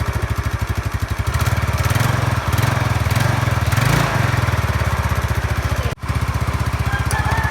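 Yamaha Mio Sporty scooter's single-cylinder four-stroke engine running with an even beat. It gets louder for a couple of seconds from about a second and a half in, then settles back.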